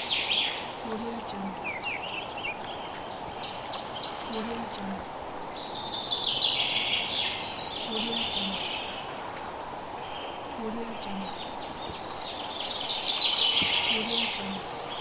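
Birds chirping and trilling over a steady high-pitched insect drone, with a low two-note call repeating about every two seconds: a wildlife video's soundtrack playing from a TV.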